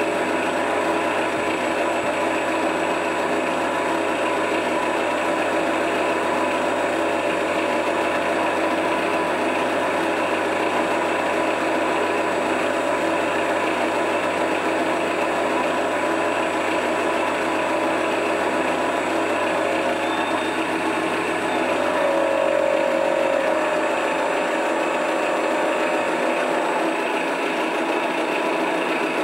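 Electronic sound module in a Yak-12R model airplane playing a simulated aircraft engine running steadily, with a slight rise in pitch and level about two-thirds of the way through before it settles again.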